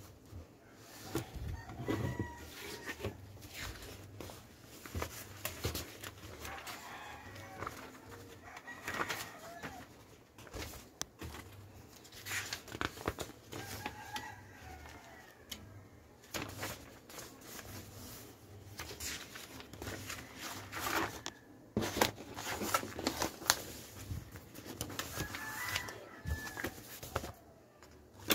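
Sheets of paper rustling and flapping as they are handled and the pages turned, with sharp crinkles and taps. In the background a rooster crows several times.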